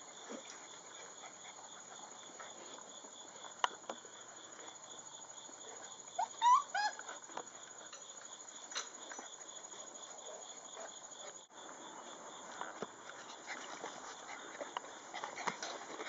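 Mastiff puppies playing in grass, with a quick string of high, short yelps about six and a half seconds in, over steady chirring of insects. Soft rustling and pattering from the puppies' movement run through the rest.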